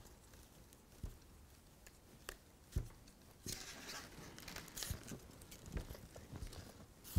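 Faint scratching and rustling of thin wire strands being twisted and divided by hand, the strands brushing against each other, with a few soft clicks in the first half and a more continuous scratchy rustle from about halfway through.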